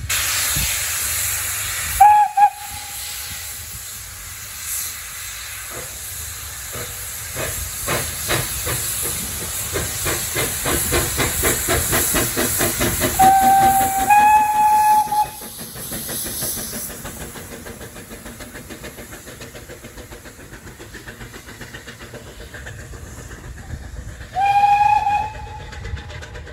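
Small steam tank engine hissing steam as it runs in, sounding short blasts on its steam whistle, then chuffing past with beats that quicken. A later whistle blast sounds briefly near the end.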